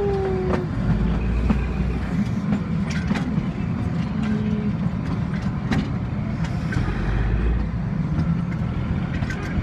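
Steady low rumble of a moving vehicle, with scattered sharp clicks and knocks.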